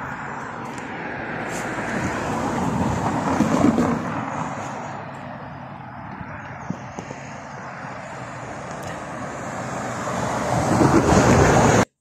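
Road traffic passing close by: one vehicle goes past about three to four seconds in, and another builds up, loudest near the end, before the sound cuts off suddenly.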